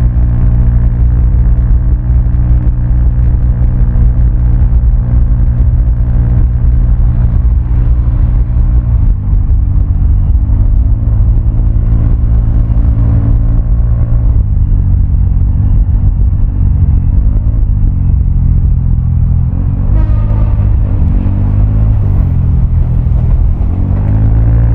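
Vespa automatic scooter's single-cylinder engine running through a Prospeed Black CNC aftermarket exhaust while riding. The engine pitch holds steady at first, then rises and falls several times in the second half as the throttle is opened and closed. There is a short clack about twenty seconds in.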